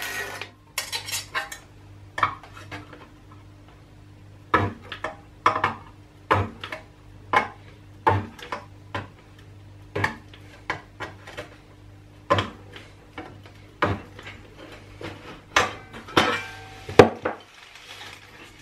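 Pro Spot stud welder welding a zigzag pulling wire onto a metal panel: a string of sharp snaps, one per weld point and often in quick pairs, about one to two a second, over a steady low hum.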